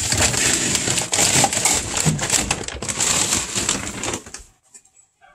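A large feed bag rustling and crinkling as it is handled, full of small crackles and clicks, stopping about four seconds in.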